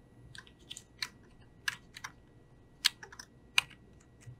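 Computer keyboard and mouse clicks: a dozen or so short, irregular key presses and clicks. The two loudest come around three seconds in.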